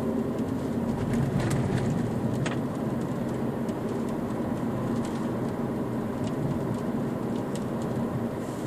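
Car interior noise while driving: a steady low hum of engine and road noise heard from inside the cabin, with a few faint ticks.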